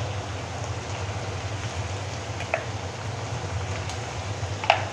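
Chopped vegetables frying in oil in an iron kadhai, a steady sizzle, with a low hum underneath. A couple of light clicks come about halfway through and near the end.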